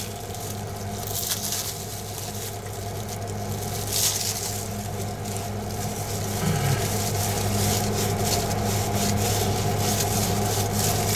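Paint roller rolling resin into fiberglass cloth, a scraping and rubbing that grows louder about six seconds in, over a steady low hum.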